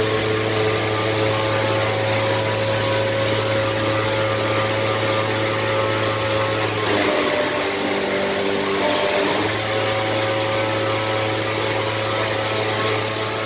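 Steady motor hum of shop machinery: a low drone with several steady tones above it. Between about 7 and 9 seconds in, the tones shift and a hiss rises, then the first hum comes back.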